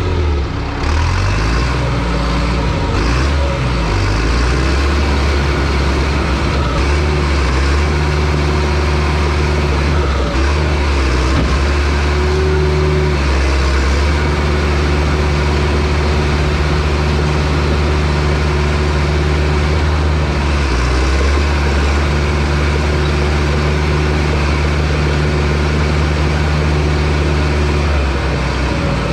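Bulldozer's diesel engine running steadily under load, its speed dipping and recovering briefly a few times.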